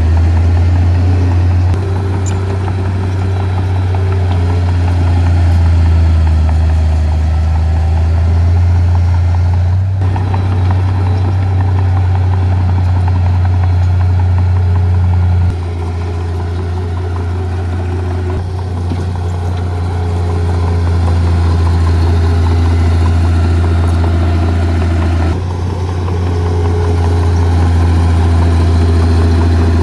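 Heavy diesel earth-moving machinery, a bulldozer and dump trucks, running steadily with a strong low drone. The level and pitch change abruptly several times.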